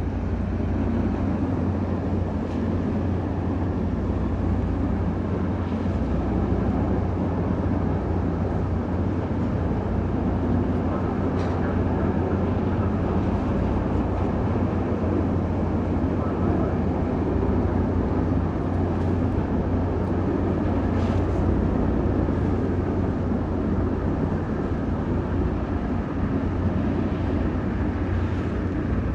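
Steady low rumble of a car ferry's diesel engines running.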